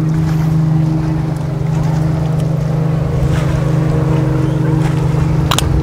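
A steady low motor hum drones on without change, with wind buffeting the microphone underneath it. A single sharp click comes near the end.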